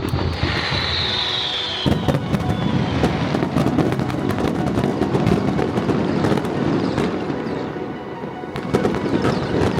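Fireworks display: a falling whistle over the first two seconds, then a dense, continuous barrage of bursts and crackling shells.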